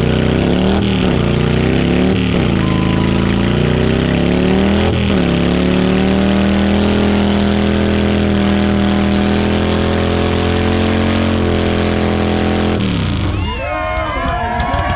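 Motorcycle engine revved hard in a burnout: three quick revs, then held at steady high revs for about seven seconds while the rear tyre spins in place, dropping off near the end. As the engine cuts, the crowd shouts and cheers.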